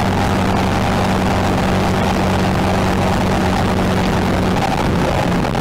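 Car travelling fast on a highway: a steady engine drone under loud road and wind rush.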